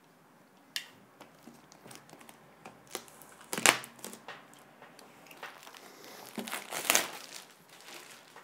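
Clear plastic shrink wrap being cut and peeled off a cardboard box, crinkling and crackling in irregular bursts. The loudest crackles come about halfway through and again near the end.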